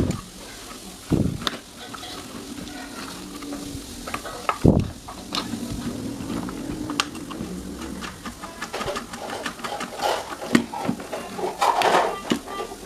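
Handling and working noises: three dull knocks early on, then a run of small clicks with scraping and rubbing that grows busier near the end.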